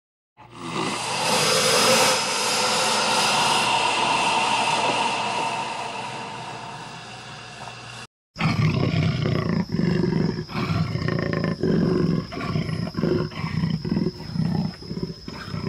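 A large animal roaring: one long, loud roar that slowly fades. After a brief break, a rapid series of short, low calls follows, with a steady high tone behind them.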